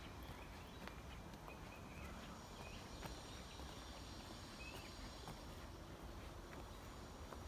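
Quiet forest ambience: scattered soft footsteps on the forest floor and a few faint, short bird chirps over a low rumble.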